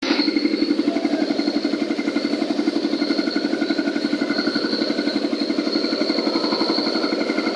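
Cement concrete mixer machine running steadily, its engine giving a fast, even pulsing beat with a steady whine above it.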